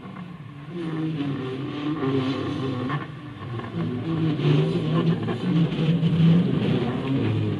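Tram running through the turning loop: a rumble of wheels on rail with a low motor hum that grows louder about a second in and again near the middle.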